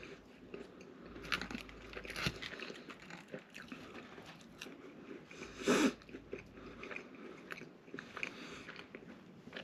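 Close-up chewing and biting of a double Big Mac and a chicken nugget: soft, irregular wet mouth clicks and crunches, with the loudest moment a little past halfway.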